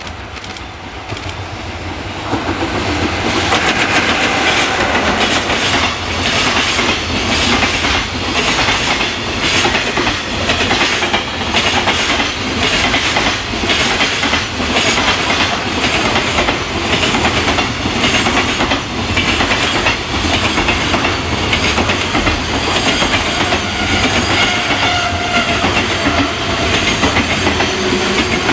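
EF66 electric locomotive and its long container freight train passing: the noise builds over the first few seconds as the locomotive comes by, then a steady rumble of wagon wheels with a fast, continuous clickety-clack over the rail joints as the wagons roll past.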